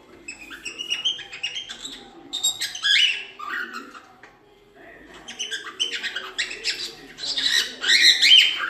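Cockatiel chirping and whistling in rapid, quickly changing calls: one bout of about three seconds, a short pause, then a second, louder bout.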